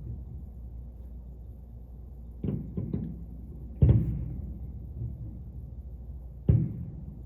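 Fireworks shells bursting, heard through a hotel room window as dull, muffled booms: a quick cluster about two and a half seconds in, the loudest just under four seconds in, and another near the end.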